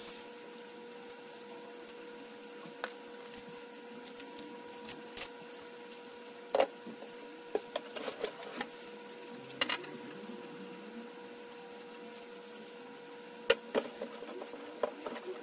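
Scattered knocks, clicks and scrapes as a blue plastic drum is shifted about and a threaded plastic flange and its fittings are handled and pushed into a hole in the drum, over a steady faint hum.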